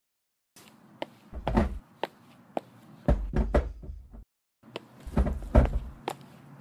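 Knocks and thuds in three short clusters, like a door being knocked on and banged.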